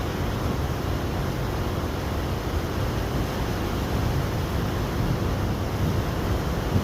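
River in full flood: fast, churning floodwater rushing past in a steady, deep roar.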